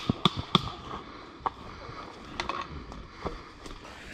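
Airsoft guns firing: three sharp shots in quick succession in the first half-second, then a few fainter scattered pops and clicks.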